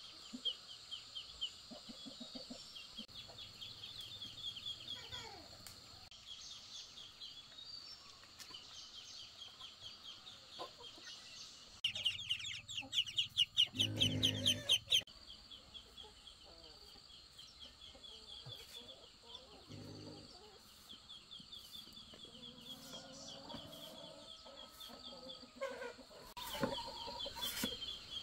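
Ducklings peeping, loudest in a rapid run of high chirps for about three seconds midway, over a faint steady rhythmic chirping. Near the end come sharp knocks of a machete chopping a banana stem on a wooden board.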